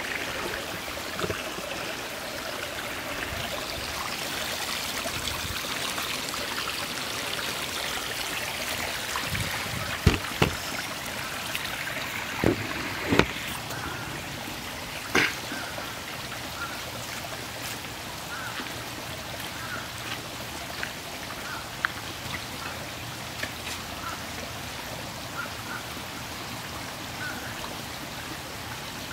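Small stream trickling and running steadily, with a few sharp knocks about ten to fifteen seconds in.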